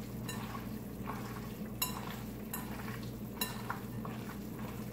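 Hands mixing a raw ground beef mixture in a bowl: soft squishing and rustling, with a sharp click about two seconds in and again about three and a half seconds in, over a steady low hum.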